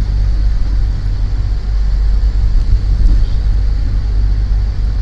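Steady low rumble of engine and road noise from a songthaew, a pickup truck converted into a shared bus, heard from on board as it drives along.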